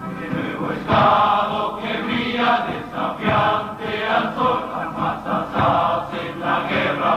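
Background music: a choir singing over instrumental accompaniment.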